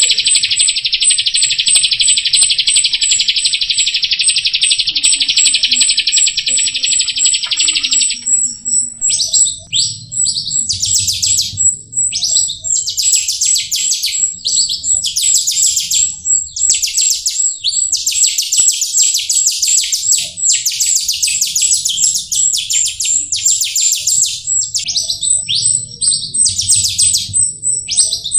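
Jalak rio singing a fast, buzzy chattering song. For about the first eight seconds it runs without a break, then it breaks into short rapid phrases with brief gaps. A high, evenly pulsing note carries on behind it.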